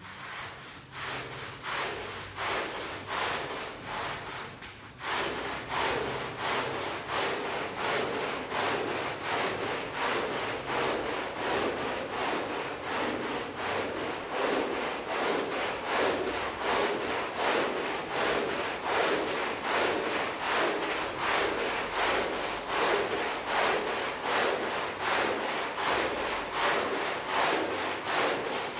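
A rug being scrubbed with a stiff brush, in rhythmic back-and-forth strokes about two a second, growing fuller and louder about five seconds in.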